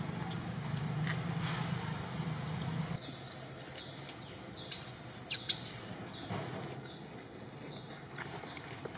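Baby long-tailed macaque squealing in high, wavering cries for about three seconds from a third of the way in, then a few fainter short squeaks. A low steady hum comes before the cries.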